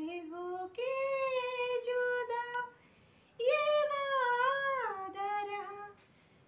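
A woman singing unaccompanied in a high voice: two long, drawn-out phrases with a short break about three seconds in.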